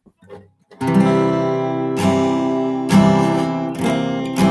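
Acoustic guitar strummed: about five full chords roughly a second apart, starting about a second in, each left to ring, as the tuning is checked before playing.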